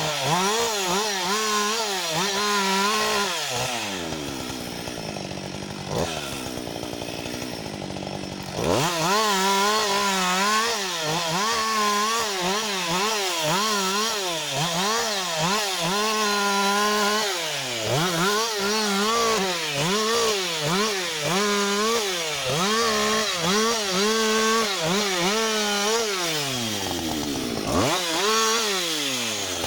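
Husqvarna 560 XP two-stroke chainsaw cutting wood at full throttle, its pitch wavering up and down as the chain loads and frees in the cut. It drops to idle for about four seconds near the start, then revs up to cut again, and dips once more briefly near the end.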